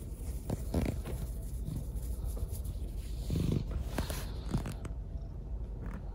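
Cat purring as a steady low rumble, with light rustling and small handling sounds over it.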